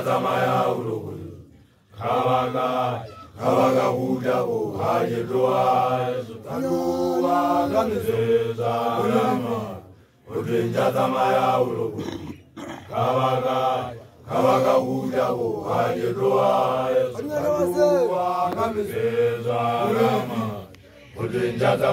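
Group of male Basotho initiates chanting together in unison, in sung phrases a few seconds long broken by short pauses for breath.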